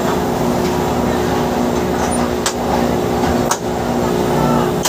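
Pushback tug's engine idling with a steady drone, broken by a few sharp clicks in the second half, as the aircraft is made ready to push back.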